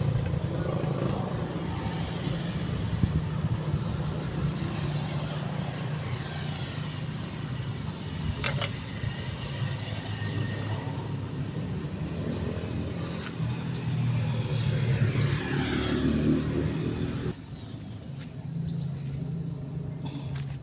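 A car's engine running steadily with a low hum, dropping in level about 17 seconds in, with short high chirps over it.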